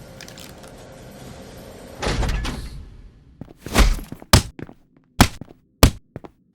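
Homemade foley sound effects for an animated fight: a low hum, then about two seconds in a short, loud rushing burst, followed by a run of sharp thunks and whacks, about five hits in under three seconds.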